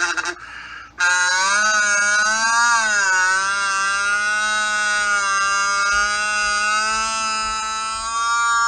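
Kazoo buzzing one long, loud note from about a second in, its pitch wobbling up and down before settling. Just before that, a previous kazoo note ends.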